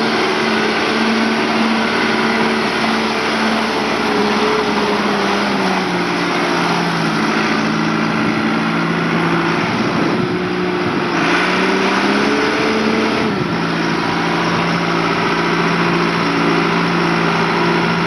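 1996 John Deere 310D backhoe loader's diesel engine running steadily. Its speed drops about five seconds in, rises and wavers for a few seconds around the ten-second mark, then settles lower again.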